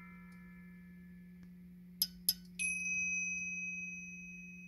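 Car audio system playing a chime test track used for judging the stereo centre image. A high chime fades out at the start, then come two sharp ticks and a clear high chime that rings out slowly over a faint steady low hum.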